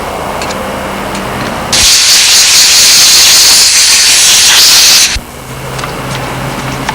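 Steam cleaner nozzle blasting pressurized steam, at roughly 100 psi, into a motorcycle carburetor's jets and ports: one loud, steady hiss that starts about two seconds in and cuts off abruptly about five seconds in.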